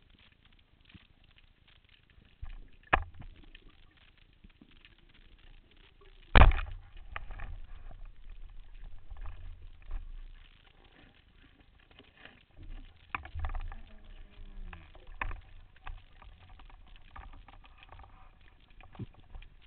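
Heard underwater, a speargun fires with a single loud, sharp crack about six seconds in, followed by several seconds of low rumbling water turbulence. Scattered sharper clicks and knocks come before and after it.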